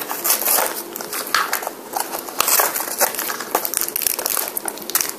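Clear plastic toy packaging crinkling and crackling as it is handled and worked open, a dense, irregular run of small crackles.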